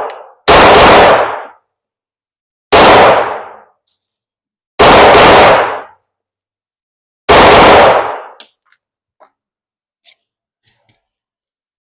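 Glock 19X 9mm pistol firing about four shots, roughly two seconds apart, each with a ringing tail, followed by a few faint clinks.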